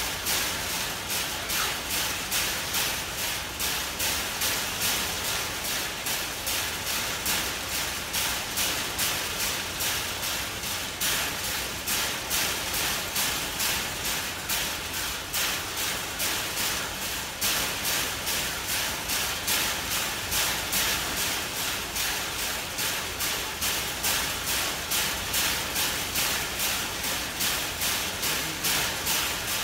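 Chimpanzee banging the iron bars of its cage in a steady, unbroken rhythm, roughly two metallic strikes a second. The uploader presents it as stereotypic behaviour (zoochosis) kept up for close to an hour.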